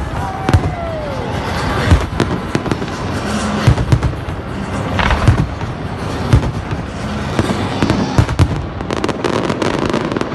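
Fireworks display: a rapid, irregular run of sharp bangs from launches and bursting shells over a constant crackle and hiss. In the first second a tone slides down in pitch.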